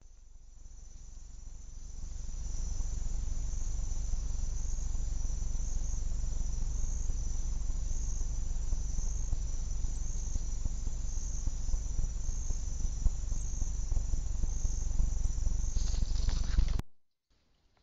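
Crickets trilling steadily in a high pitch, over a loud steady low rumble. The sound fades in over the first two seconds and cuts off suddenly near the end.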